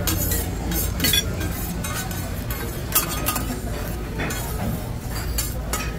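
Metal spatulas clinking, tapping and scraping irregularly on a hibachi flat-top griddle while food sizzles, with a sharp strike about a second in and another at about three seconds, over a steady low hum.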